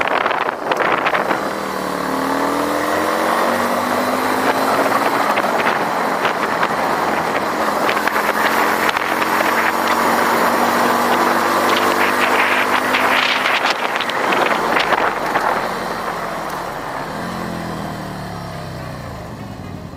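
Kuba Nevada 250 twin-cylinder motorcycle engine running on the move. Its note rises as it accelerates, climbs again in the middle, and falls away near the end as it slows. Wind and road rush run steadily underneath.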